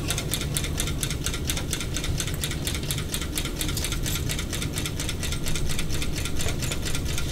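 Homemade soda-can Stirling engine running, its crank and flywheel linkage clicking in a rapid, even rhythm of several clicks a second. It is running on reduced heat while its canned-fuel burner is taken away and put back.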